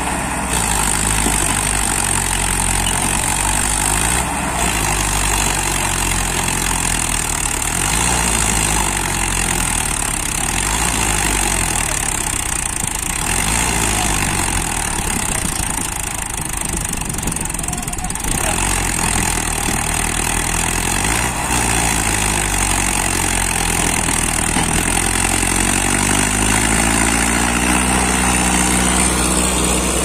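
Diesel engines of a Mahindra Arjun 555 DI tractor and a JCB 3DX backhoe loader running under load while freeing a mud-stuck loaded trolley. The engine pitch rises and falls and climbs near the end, over a steady high whine.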